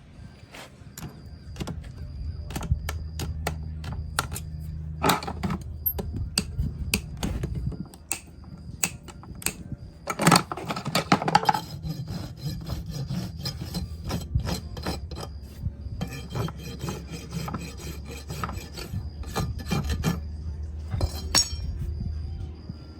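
Farrier's rasp scraping a horse's hoof in a long series of short strokes, the heaviest about halfway through, over a low steady hum.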